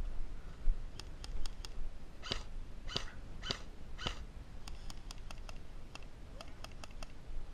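Airsoft guns firing in short strings of sharp cracks: four quick shots about a second in, then about a dozen more shots between about four and a half and seven seconds in. In between come four short high-pitched calls of unknown source, about half a second apart.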